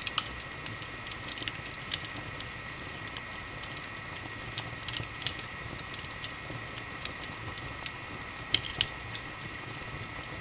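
Wood fire burning in an open fireplace, crackling with irregular sharp pops, a few louder ones about five seconds in and near the end, over a steady hiss. A faint steady high tone runs underneath.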